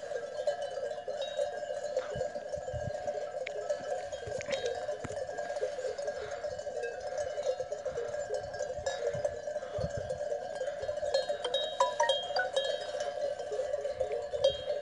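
Bells on a grazing flock of sheep and goats clanking continuously, many overlapping rings blending into a steady jangle.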